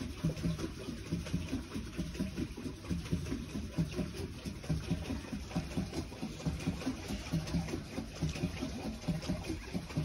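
Pedal boat's paddle wheel churning the lake water, a low sloshing that surges and falls in an even rhythm.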